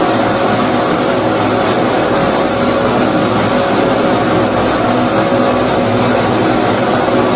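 Steady white noise for putting a baby to sleep, an even hiss with no rhythm or breaks, meant to resemble the sound heard in the womb.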